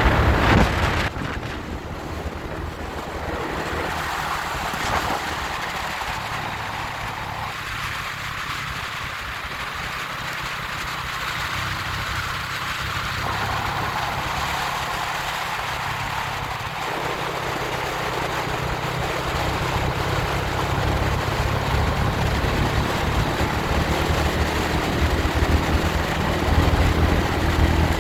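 Motor vehicle on the move: steady engine and road noise, growing louder over the last several seconds.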